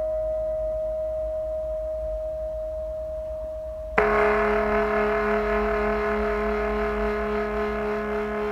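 A ringing metallic tone that fades slowly. About four seconds in, a new, lower tone is struck and rings on, with wavering overtones.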